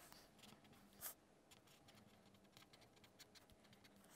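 Faint scratching and light tapping of a pen writing on notebook paper, with a slightly louder tap about a second in.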